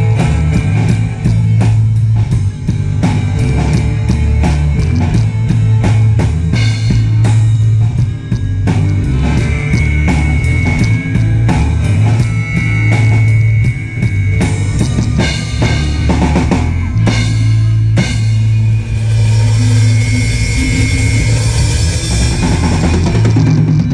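Live rock band playing without vocals: drum kit with bass drum and snare driving a steady beat under a loud bass line and electric guitar. Cymbals wash in over the last few seconds.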